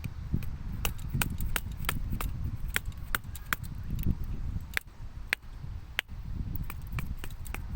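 Kennata being batoned through firewood: sharp, irregular knocks of the wooden baton on the blade's spine, about two or three a second, over a low rumble.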